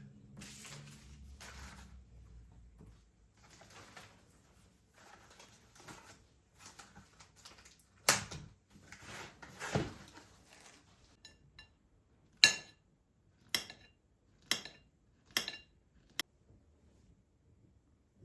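Kitchenware being handled: soft rustling and scraping, two sharper knocks, then five clear ringing clinks about a second apart, a utensil striking a dish.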